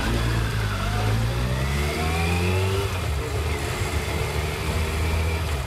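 Kawasaki ZRX 1100's inline-four engine running at low road speed, with an engine note rising in pitch for about two seconds from about a second in, then holding steady.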